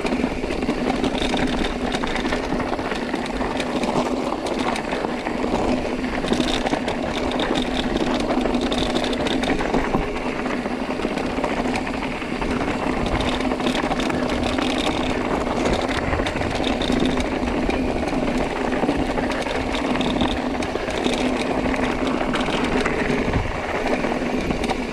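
Carbon mountain bike riding fast down a stony trail: tyres crunching and skittering over loose rock while the frame, chain and suspension rattle continuously.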